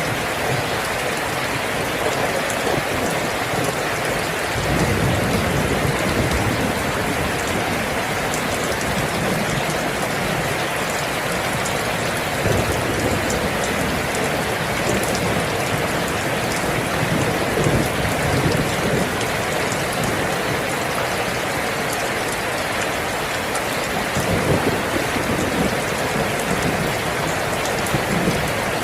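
Steady, dense rainfall, with a few brief low swells in the sound.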